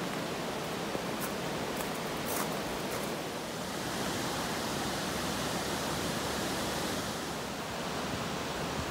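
Steady hiss of rain falling together with river water running over shallows.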